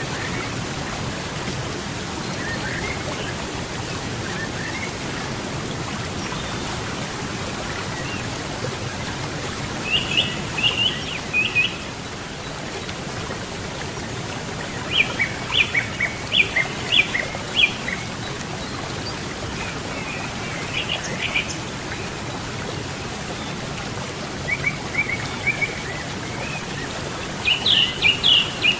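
River water flowing steadily, with birds singing several short phrases of quick chirps every few seconds; the last phrase, near the end, is the loudest.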